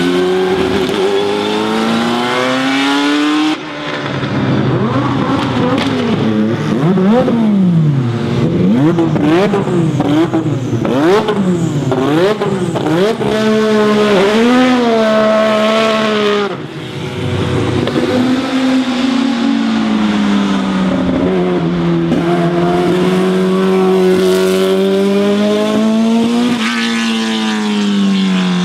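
Historic Formula 1 racing engines at high revs, several cars in turn: the engine note climbs and drops with gear changes and throttle blips, zigzagging quickly for several seconds in the middle. The sound cuts abruptly to a different car about 3.5 s and 16.5 s in.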